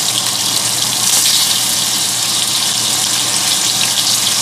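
Beef steak sizzling in hot oil and butter in a frying pan, just turned over: a steady, high hiss with scattered small crackles.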